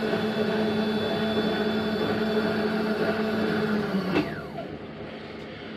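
Vertical milling machine's spindle motor running with a steady hum, then switched off about four seconds in and winding down, its pitch falling as it slows.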